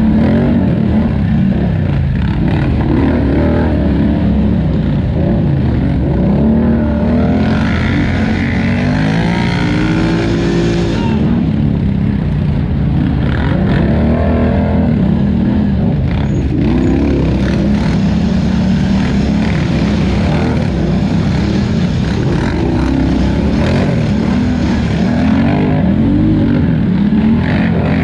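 Polaris Scrambler XP 1000 ATV's twin-cylinder engine running hard under race load, its revs rising and falling constantly with the throttle. From about eight to eleven seconds in there is an added stretch of hissing noise.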